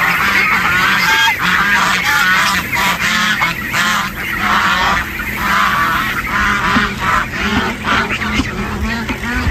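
A large flock of ducks quacking continuously and all at once, many overlapping calls, as they crowd in to be fed.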